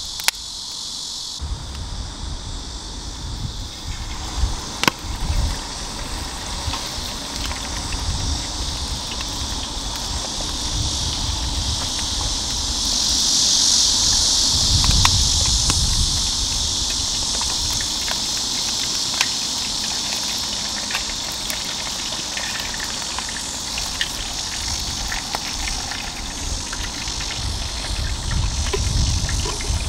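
Hot oil sizzling around a whole floured chicken deep-frying in a cast-iron pot-lid griddle over a wood fire, a steady hiss with scattered sharp pops. The sizzle swells about halfway through and again near the end.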